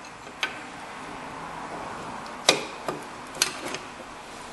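Rear drum-brake shoe being fitted onto its backing plate by hand: a handful of sharp metal clicks and knocks, the loudest about two and a half seconds in.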